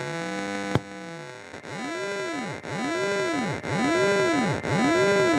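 Loudspeaker playing the stair-stepped output of a Rockland/Wavetek 5100 DDS synthesizer's 11-bit DAC set to a very low frequency. Because the amplifier is AC coupled at about 20 Hz, what is heard is pure step distortion: a harsh tone full of overtones that sweep up and down about once a second. A sharp click comes just under a second in, and the pattern changes about a second and a half in.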